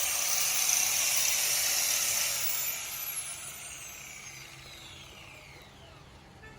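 Handheld power tool, such as a grinder used on stone, running at full speed and then switched off: its whine falls steadily in pitch and fades as it spins down over several seconds.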